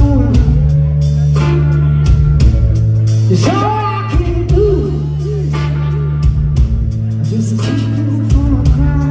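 A rock band playing a slow groove: held bass notes under electric guitar and drums, with a bending melodic line in the middle.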